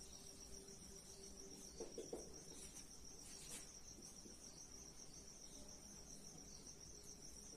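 Near silence: a faint, steady high-pitched trill, with a few faint scratches of a marker writing on a whiteboard about two seconds and three and a half seconds in.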